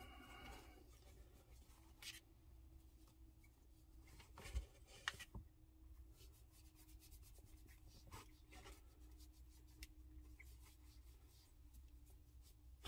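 Near silence with faint rubbing and rustling as a wipe is worked over a puppy's fur and paws, with a few soft clicks. A faint steady hum lies underneath.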